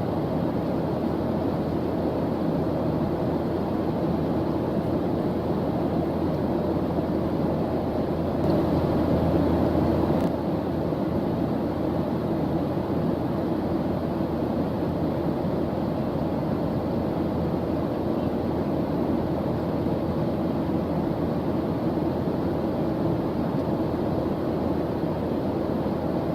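Steady white-noise ambience, an even rushing hiss weighted toward the low end, slightly louder for a couple of seconds near the middle.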